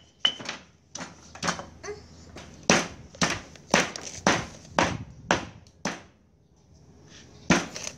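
Stone pestle pounding garlic in a heavy stone mortar: sharp knocks of stone on stone, about two a second. The knocks pause for a second or two near the end, then start again.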